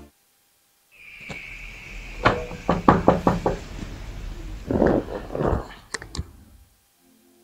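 Knocking on a wooden door: a quick run of about six raps a couple of seconds in, and more knocks a few seconds later.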